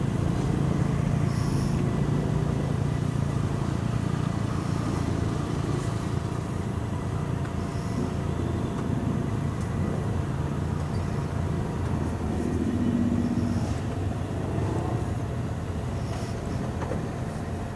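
Many motorcycles idling at a standstill in a packed queue, a steady low engine rumble with no revving.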